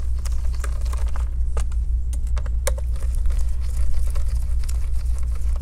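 Light clicks and rustling from gloved hands handling a laptop's bottom cover, over a steady low hum.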